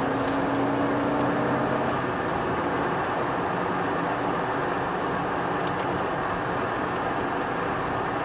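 Steady road and engine noise inside the cabin of a moving Alfa Romeo Stelvio Quadrifoglio, mostly tyre rumble with the twin-turbo V6 underneath. A faint engine tone fades out about two seconds in.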